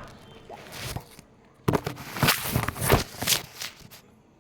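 Sponge and plastic packaging being handled and stuffed, giving a quick run of rustling, crinkling strokes, about half a dozen in two seconds, starting near the middle.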